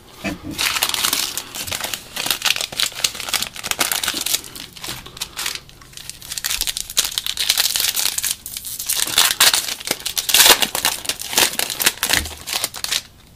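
Foil trading-card pack wrapper crinkling and tearing as it is handled and opened, a dense crackle that stops suddenly shortly before the end.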